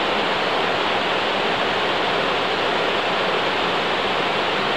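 A small waterfall cascading down rock ledges, giving a steady, even rush of water.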